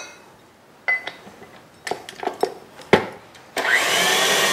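KitchenAid Artisan stand mixer: a few light metal knocks as the dough hook is fitted, then about three and a half seconds in the motor switches on with a brief rising whine and runs steadily, the hook kneading bread dough.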